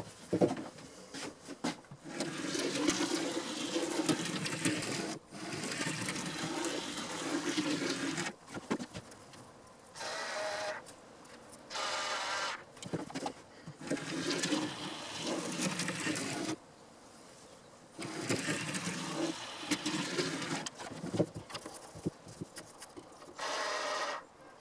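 Small electric motor of an OO9 narrow-gauge model locomotive running with a light whine and wheel noise on the track. It goes in several spells of a few seconds each, stopping and starting between them.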